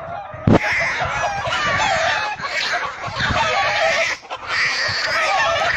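Hen squawking and clucking in alarm as it fights off a small dog, over a dense noisy rush. It starts with a sharp knock about half a second in and drops away briefly about four seconds in.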